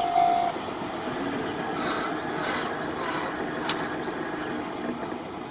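Japanese level-crossing warning bell ringing about twice a second, stopping about half a second in, which leaves a steady noise from the railway.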